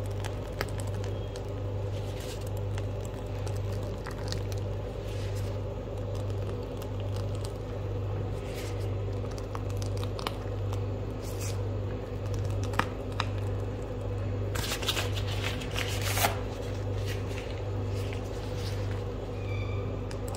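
Pastry piping bag crinkling and rustling in the hands as cream is squeezed out of it, with scattered small crackles and a denser cluster of them about fifteen seconds in, over a steady low hum.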